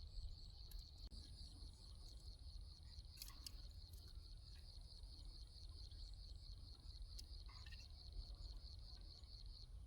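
Faint insect trill: a steady, rapidly pulsing high chirring that stops just before the end, over a low rumble, with a few brief clicks.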